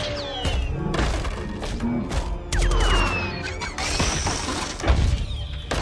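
Action-film soundtrack: music under a dense run of metallic crashes, thuds and low booms as giant robots fight and smash through trees, with falling-pitch mechanical whines near the start and about two and a half seconds in.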